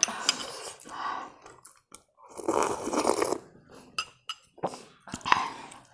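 A person chewing food close to a lapel microphone, in irregular bursts, with a few short sharp clicks of a spoon against a bowl.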